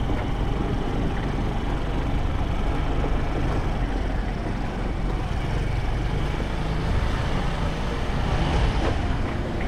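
Motor scooter's small engine running steadily while riding slowly, with a continuous low rumble.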